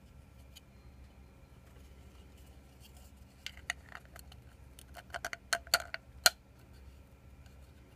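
Two 3D-printed plastic halves of a rattle-drum body clicking and knocking together as they are handled and fitted. There are a few light clicks, then a quicker run of clicks, the last one the loudest.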